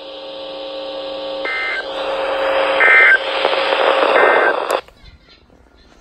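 Weather radio receiver sounding the Emergency Alert System end-of-message code after a severe thunderstorm watch: three short bursts of digital data tones about 1.4 seconds apart, over a steady buzzing hum and rising static. The sound cuts off suddenly about five seconds in.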